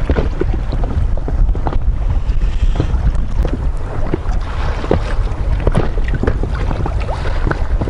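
Wind buffeting the microphone in a low, steady rumble, with water lapping against a small inflatable boat on a choppy sea and scattered small clicks and taps.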